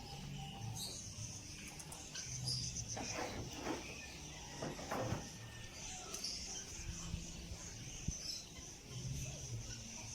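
Steady high-pitched animal chirring, with two brief rustling noises about three and five seconds in.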